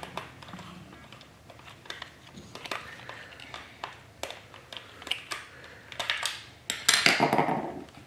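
Scattered plastic clicks and light knocks of a toy remote-control stunt bike being handled and turned over while its AA batteries are fitted, with a denser stretch of handling noise about seven seconds in.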